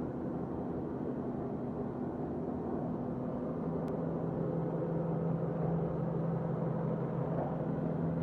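Computerized quilting machine running, a steady mechanical hum that grows a little louder about three seconds in.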